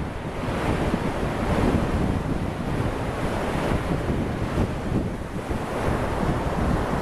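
Ocean surf breaking and washing onto a sandy beach in a steady wash, with wind buffeting the microphone.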